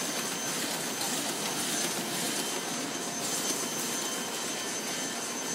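Heidelberg SORMZ two-colour sheetfed offset press running steadily: an even mechanical whir with a faint, high, constant whine.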